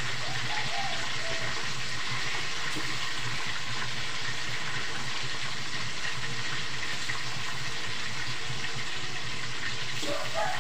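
Food frying in hot oil in a wok: a steady sizzle.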